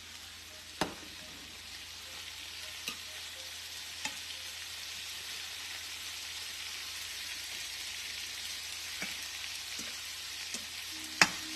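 Chicken, onions and peppers sizzling steadily in a frying pan, with a few sharp clicks against the pan, the loudest near the end.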